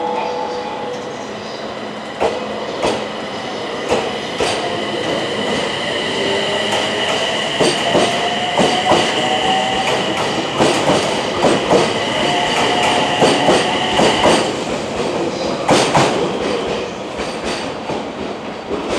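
SAT721-series electric train pulling out of the station. Its traction motors whine, rising in pitch as it picks up speed, while the wheels click over the rail joints. The clicks come faster as the train passes and thin out as it moves away, and a steady high whine stops about fourteen seconds in.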